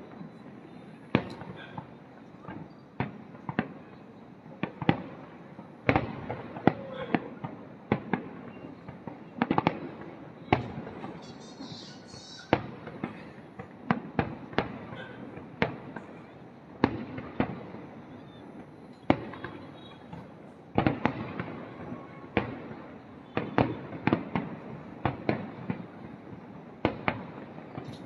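Fireworks display: aerial shells bursting at irregular intervals, about one or two sharp bangs a second, with crackling between them.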